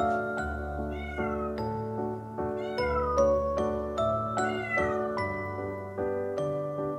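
Domestic cat meowing three times, a short arched call roughly every second and a half, over background music of gently plucked notes.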